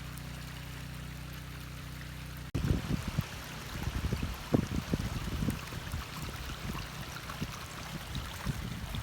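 Floodwater from heavy rain rushing down a valley stream. About two and a half seconds in, it starts suddenly, replacing a steady low hum, and is mixed with uneven low thumps of wind on the microphone.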